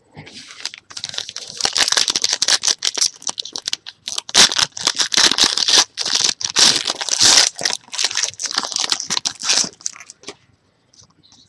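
Foil trading-card pack wrapper being crinkled and torn open by hand: dense crackling that stops about ten seconds in.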